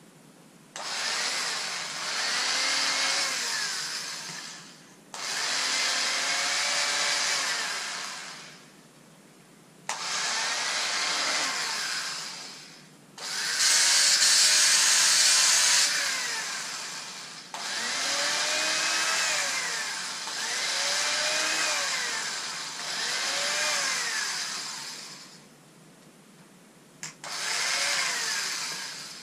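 Handheld electric fabric cutter cutting stretch lycra in about eight bursts of two to four seconds, with short pauses between. Within each burst the motor's whine rises and then falls in pitch.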